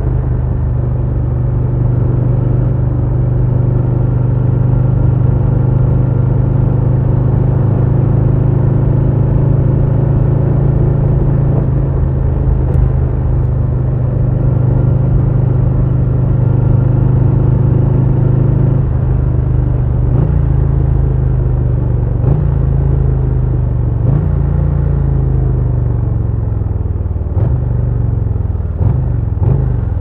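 A 2022 Harley-Davidson Low Rider S's Milwaukee-Eight 117 V-twin engine running under way with a steady, deep exhaust note. From about two-thirds of the way in, the note rises and drops in short steps several times.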